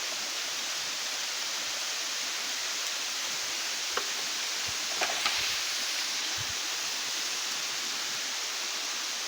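Steady rush of falling water from a waterfall, even and unbroken, with a couple of brief faint clicks about four and five seconds in.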